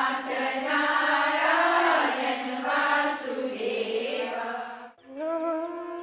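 A group of voices singing a Hindu devotional chant. About five seconds in it cuts to instrumental music with long, steady held notes.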